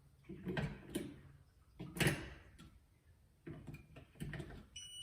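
Batteries being fitted into the battery compartment of a keyless entry deadbolt's inside unit: a series of plastic clicks and knocks, the loudest about two seconds in. Near the end the lock gives a short high electronic beep as it powers up.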